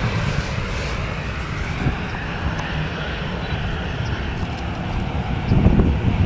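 Boeing 737-800's CFM56 jet engines running as the airliner begins its takeoff roll. A steady rumble and roar that grows louder near the end.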